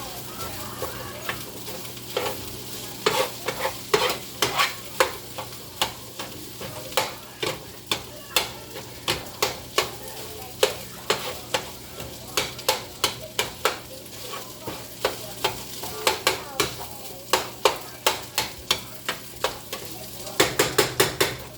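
Ground beef sizzling in a frying pan while a utensil stirs and breaks it up, knocking against the pan a couple of times a second, with a quick flurry of knocks near the end.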